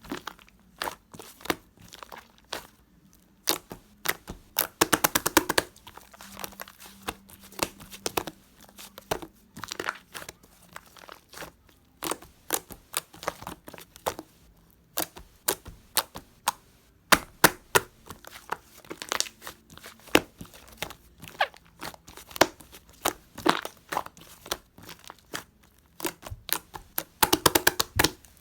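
Slime being kneaded and pressed by hand: irregular sticky clicks and pops, with fast runs of crackling about five seconds in and again near the end.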